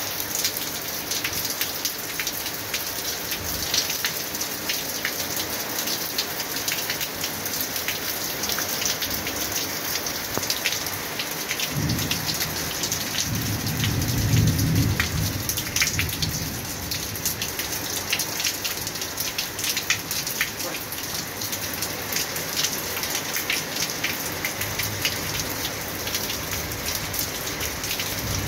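Steady heavy rain falling, with many close drops striking sharply. A little before the middle a low roll of thunder swells for a few seconds and fades.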